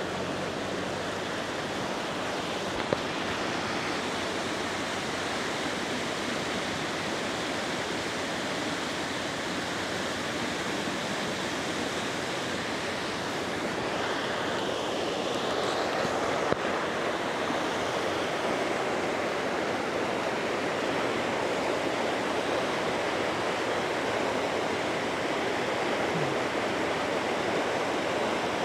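Steady rush of moving floodwater, an even unbroken noise with a small click about sixteen seconds in.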